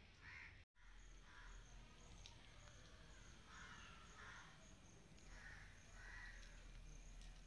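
Faint outdoor ambience: a crow cawing several times over a steady, high insect trill. The sound drops out completely for an instant under a second in.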